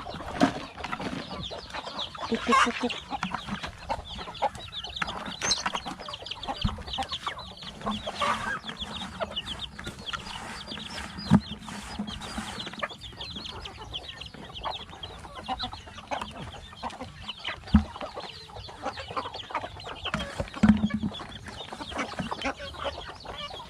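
A flock of domestic backyard chickens clucking and calling in their pen, with a few sharp knocks standing out now and then.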